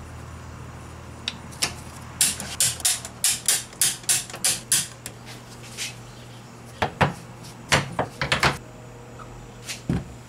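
A run of quick sharp clicks, about four a second, from the trigger of a dispensing gun squeezing seam sealer. Then several heavy clunks as cast-iron weight plates are set down on the bare steel hood bracing.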